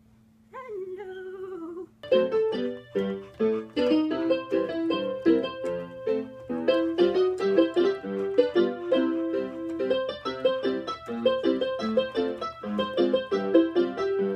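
Electronic keyboard played with a piano voice, a steady run of notes and chords that starts about two seconds in. Before it, a short, gliding voice-like 'hello'.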